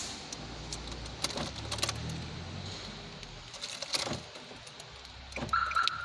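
Keys jangling and clicking in the ignition of a 2014 Nissan Versa, with its HR15 engine cranking on the starter for about three seconds without starting. This is a crank-no-start: the ECU reads zero engine RPM while cranking, which points to the crank sensor, its harness or the ECU.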